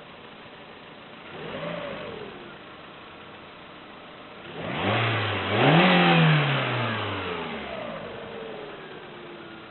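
Lada Priora's 1.6-litre 16-valve VAZ-21126 engine idling, blipped briefly about a second in, then revved harder about five seconds in and falling back to idle. It carries a knock that the owner is certain is piston knock, since replacing the hydraulic lifters did not cure it.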